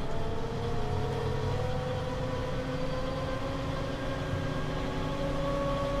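Tractor engine and PTO driveline turning a Krone Comprima CF155 round baler, heard inside the cab: a steady hum with a whine that rises slowly in pitch for about five seconds and then holds, as the PTO comes up to its working speed of about 540 rpm.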